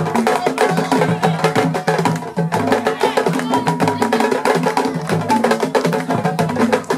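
Ensemble of Senegalese sabar drums, tall pegged wooden drums struck with one bare hand and a thin stick, playing a fast, dense interlocking rhythm of sharp cracks over deeper pitched tones.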